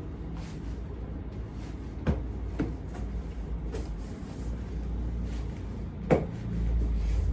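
About four short clicks and knocks during a chiropractic spinal adjustment, the loudest about six seconds in, over a steady low rumble.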